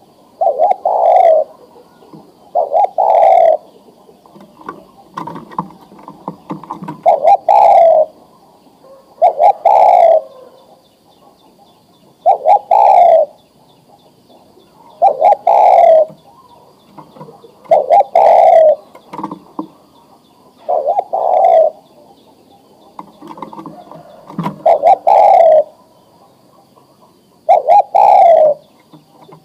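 Male spotted dove (tekukur) cooing its call phrase over and over, a loud phrase of about a second every two to three seconds, with softer low cooing in between. It is the male's breeding call to a female.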